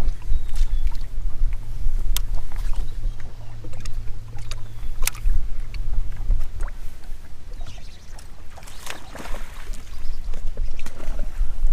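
Small fishing boat on the water: low rumble with scattered light knocks and clicks, and a steady low hum that stops about six seconds in.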